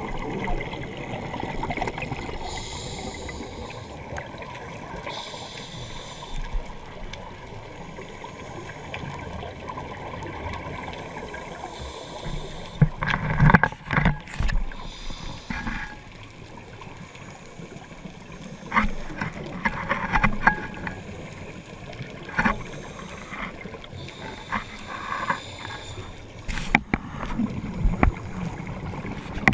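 Underwater sound of a scuba diver breathing through a regulator: hissing inhalations and bubbling, gurgling exhalations. About halfway through come louder bubbles and a few sharp knocks.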